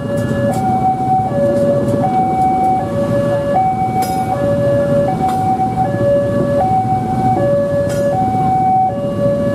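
Railway level-crossing warning alarm sounding a steady two-tone signal, high and low notes alternating about every three quarters of a second, while a train of passenger coaches rumbles past on the rails. A sharp clack about four seconds in and again near eight seconds.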